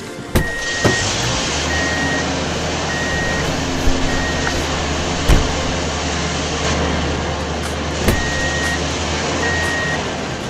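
Truck engine running steadily with a reversing alarm beeping in a regular on-off rhythm; the beeping pauses for a few seconds in the middle and then resumes. A few sharp knocks sound over it.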